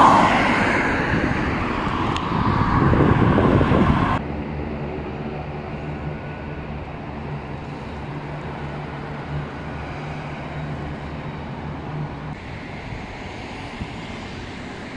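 Loud rushing noise for about four seconds, then an abrupt cut to a quieter, steady machine drone with a low hum.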